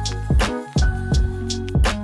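Instrumental background music with a steady drum beat under held chords.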